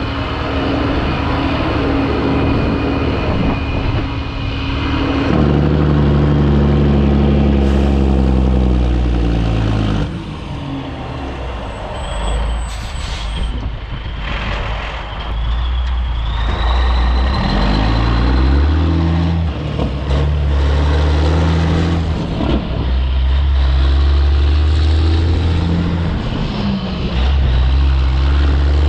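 Diesel engine of a 1984 Peterbilt 362 cabover semi pulling away under load with a heavy trailer. Its pitch climbs through each gear and drops at every shift, several times over.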